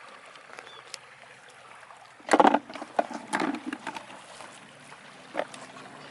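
Shallow flowing water trickling, with a burst of splashes about two and a half seconds in and one more splash near the end.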